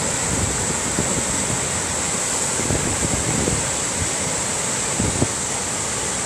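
Steady outdoor rushing noise with a constant high hiss, broken by brief low rumbles of wind buffeting the microphone.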